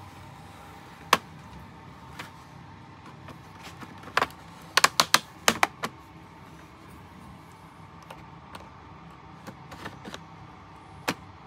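Sharp plastic clicks and snaps as the HP laptop's palmrest is pried off its base, its retaining clips letting go. One click comes about a second in, a quick run of five or six around the middle, and one more near the end.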